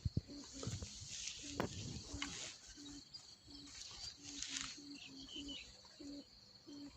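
Thai kite hummer (snu), a 1.8 m bow strung with rattan, humming one low tone in short on-off pulses as the kite rides the wind. Gusts of wind hiss on the microphone.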